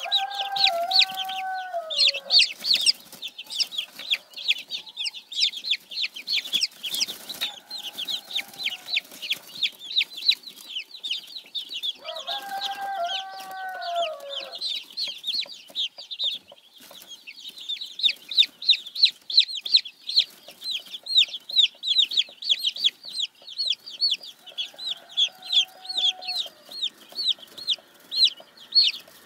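Baby silkie chicks peeping: a dense, continuous run of rapid, high-pitched peeps from several chicks at once. Three times a lower, drawn-out tone sounds under them and drops in pitch at its end.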